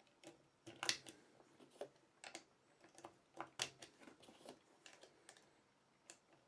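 9mm cartridges being pushed one by one into a Glock 17 magazine with a +6 extension: a string of irregular sharp metallic clicks as rounds snap in under the feed lips and brass rubs on the magazine, the loudest click about a second in.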